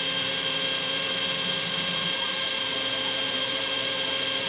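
Clausing 5914 metal lathe running, its chuck spinning a 1018 steel bar while a tool faces and turns it: a steady mechanical whine with a high tone.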